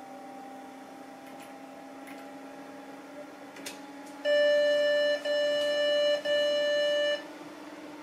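Lenovo ThinkCentre M91p's BIOS beeping three long beeps in quick succession from about halfway, over the steady whir of its fans running way too fast, with a few faint clicks before. The beep code and fan noise most likely have something to do with memory that is not being detected.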